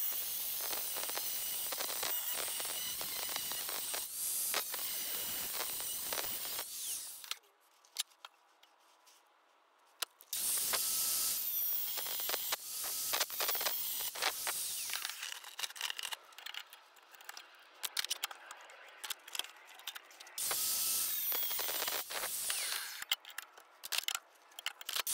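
Angle grinder with a thin cut-off disc cutting a steel tube clamped in a vise, a steady hissing screech. It cuts in spells: it stops about seven seconds in for about three seconds, starts again, eases off for a few seconds in the middle, and bites in hard again about twenty seconds in.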